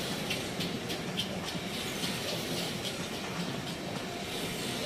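A carousel turning: the steady rumble of the rotating platform and its mechanism, with light clicks at about three a second.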